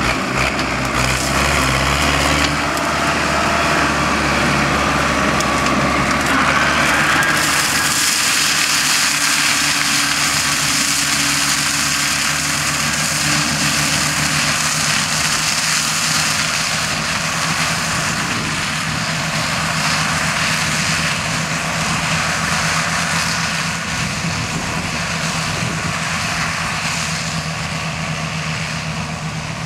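Fiat 780 tractor's diesel engine running steadily under load while a rear-mounted flail mulcher shreds dry corn stalks, with a louder rushing hiss from the chopping from about eight seconds in.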